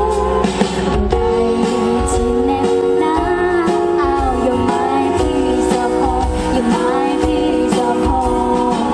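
Live band playing a song, with a woman singing the lead vocal.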